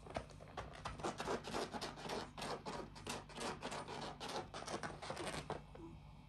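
African grey parrots' beaks and claws scratching and tapping on a laminate floor: a rapid, irregular run of small clicks and scrapes.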